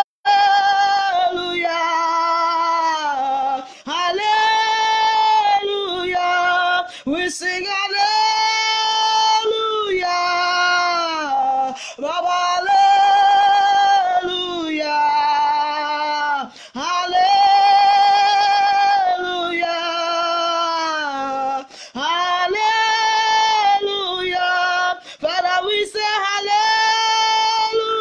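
A woman singing a slow worship song solo, in long held notes with short pauses between phrases.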